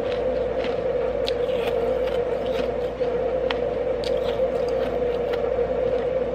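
Nugget ice being chewed with the mouth closed: quick, irregular crunches over a steady hum.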